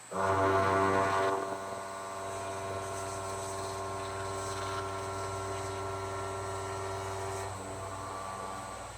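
Syil X7 CNC mill's spindle driving a helical endmill through A36 hot-rolled steel: a steady whine with several pitches that starts suddenly, is loudest for about the first second, and changes tone about seven and a half seconds in.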